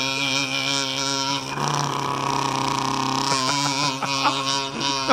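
Kazoo buzzing on a held note with vibrato, the pitch wavering evenly. About a second and a half in the tone shifts, and in the last couple of seconds the note breaks up into short, uneven wobbles.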